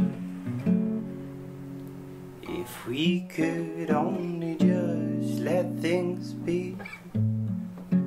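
Steel-string acoustic guitar played with the fingers, chords ringing and changing about once a second.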